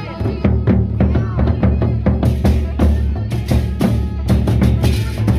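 Gendang beleq ensemble playing: large Sasak barrel drums beaten in fast, dense interlocking strokes over a continuous deep low ring.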